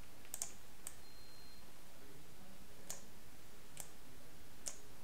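Computer mouse clicking: a quick double click and another click within the first second, then single clicks about a second apart.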